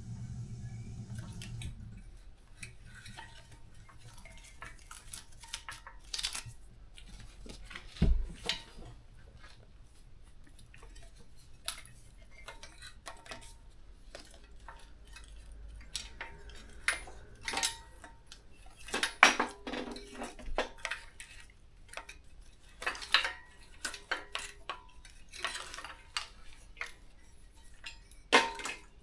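Hand work on a motorcycle frame: scattered metallic clinks, rattles and knocks as the wiring loom and its fittings are worked free and pulled out. There is a dull thump about eight seconds in and a flurry of clattering a little past the middle.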